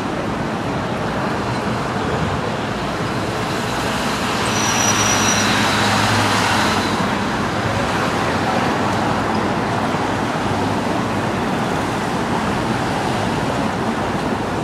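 Busy city street traffic: a steady wash of car and taxi engine and tyre noise that swells as a vehicle passes close about five seconds in, with a brief high tone at that moment.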